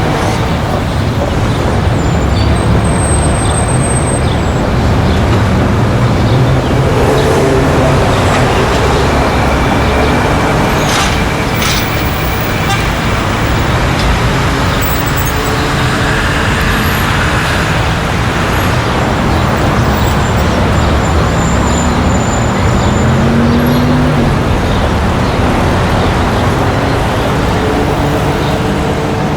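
Street traffic: a steady, continuous noise of passing cars and engines, with a few brief high-pitched tones and a short rising engine tone near the end.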